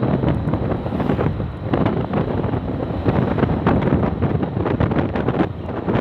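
Strong wind buffeting the microphone: a loud, rough rumble that rises and falls with the gusts and crackles throughout.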